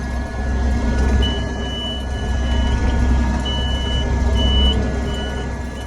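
Combine harvester's engine running steadily. From about a second in, a high electronic backup alarm sounds: first one long tone, then shorter beeps about once a second as the combine reverses.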